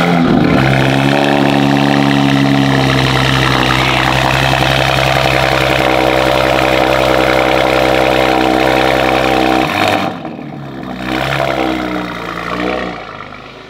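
2023 Audi RS5's twin-turbo 2.9-litre V6 cold-starting through 034 Motorsport high-flow downpipes and an AWE Touring exhaust: it catches with a short rev flare, then settles into a loud, steady fast idle. The sound drops away sharply about ten seconds in.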